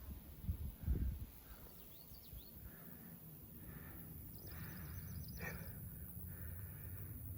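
A songbird calls: a few high chirps about two seconds in, then a fast, even trill of repeated high notes, about ten a second, lasting just under a second around the middle. Low wind noise and rustle run underneath, with a low bump about a second in.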